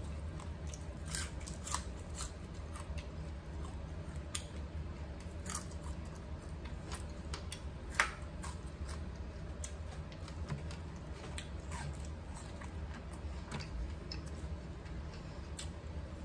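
Crispy fried fish being pulled apart by hand and chewed: small irregular crackles and crunches of the fried crust, with one louder click about halfway through, over a steady low hum.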